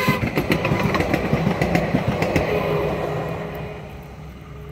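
DART light rail train passing over the crossing, its wheels clattering in quick, irregular clacks over a rumble. It fades as the train runs away down the track over the last second or two.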